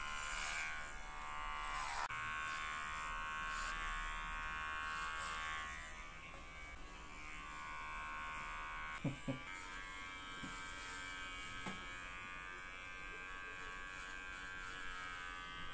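Corded electric pet hair clipper buzzing steadily as it shears through a dog's fur, its hum getting a little quieter about six seconds in. A couple of short knocks about nine seconds in.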